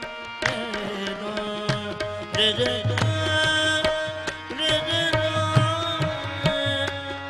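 Qawwali music: harmoniums holding sustained chords while tabla strokes and hand claps keep the beat, with brief sung phrases.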